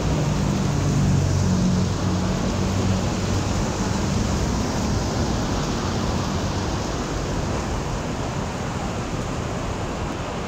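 Heavy downpour of rain, a dense, steady hiss. A low rumble sits under it in the first half and fades out by about the middle.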